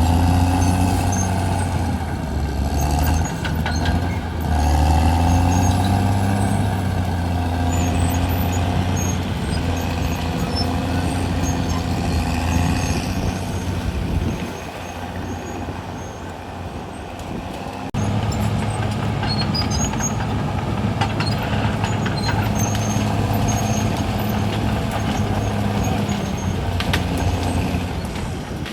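CAT D6R XL bulldozer's diesel engine running under load. It drops lower and quieter for a few seconds about halfway through, then picks up again.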